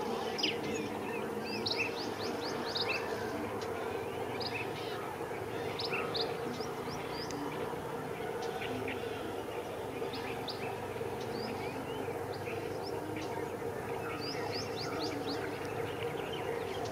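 Small birds chirping in many short, quick downward-sweeping notes over a steady, unchanging drone of insects.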